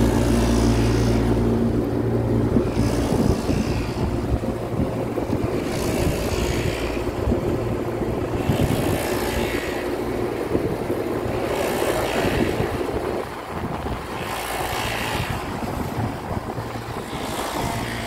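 Steady mechanical drone of running rooftop HVAC units, with wind buffeting the microphone and a hiss that swells about every three seconds.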